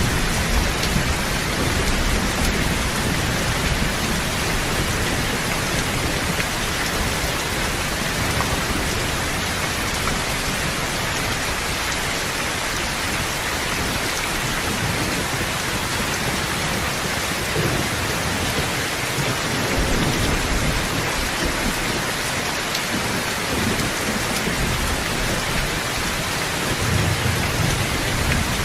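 Steady heavy rain, an even hiss, with low thunder rumbling underneath that swells near the start, again past the middle, and near the end.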